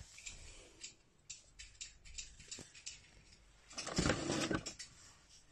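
Scattered light clicks and taps, with a brief rustle about four seconds in: handling noise from the boxed novelty alarm clock, between its tune and its spoken message.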